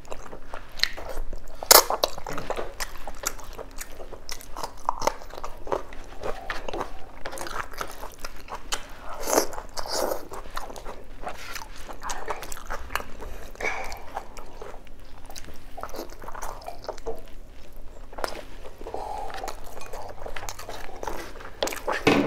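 Close-miked eating sounds of a person chewing rice and soft boiled beef oxtail: irregular chewing, lip smacks and small mouth clicks, with one sharper click about two seconds in.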